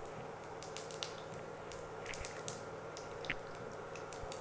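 Cumin and mustard seeds frying in hot oil in a kadhai, giving off scattered small pops and crackles over a faint sizzle. This is the tempering stage, with the seeds spluttering as they fry.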